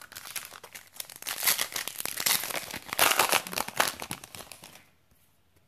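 Foil wrapper of a Yu-Gi-Oh booster pack crinkling as it is handled and torn open, with the stack of cards being slid out of it. The crackling is loudest in the middle and fades out about five seconds in.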